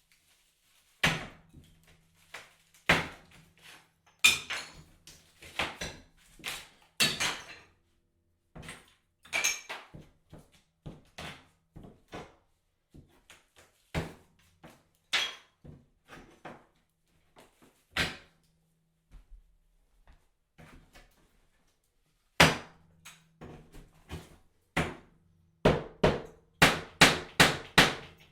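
Bathroom tiles and drywall being broken out with a hammer: irregular sharp knocks and cracks with bits of debris falling, and a quick run of blows, about three a second, near the end.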